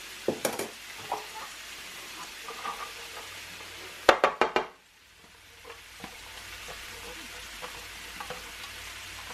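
Sliced mushrooms sizzling in butter in a nonstick frying pan, with a few spatula clicks near the start. About four seconds in, diced onions are tipped in from a plastic chopper container with a short clatter. The sizzle then cuts out and slowly builds back up.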